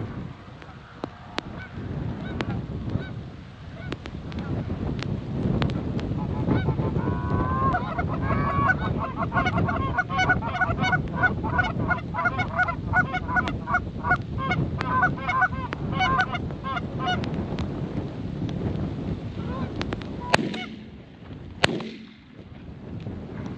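A bird calling in a long run of rapid, pitched calls, several a second, starting about six seconds in and stopping about seventeen seconds in, over a steady low rumble. Two sharp clicks near the end.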